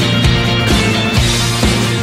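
Background music: a loud, steady rock-style backing track with a regular beat.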